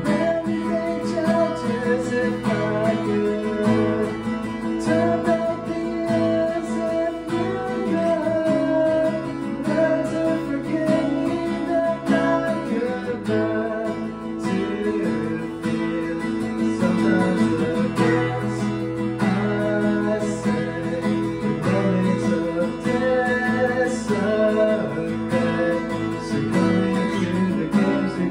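Acoustic guitar strummed steadily through a chord progression, with a melodic line moving above the chords.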